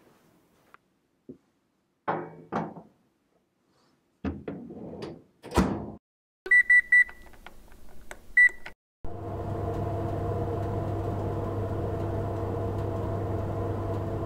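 A few knocks and clunks, then an oven's control panel beeps three times in quick succession and once more as it is set to 160 °C for 45 minutes. About nine seconds in, the oven starts running with a steady hum.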